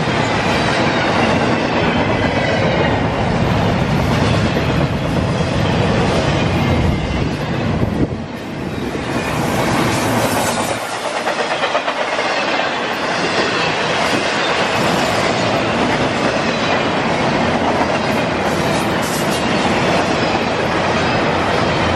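Double-stack container train's well cars rolling past: a loud, continuous rumble and rattle of steel wheels on the rails, dipping briefly about eight seconds in, then a run of rhythmic clacks a few seconds later.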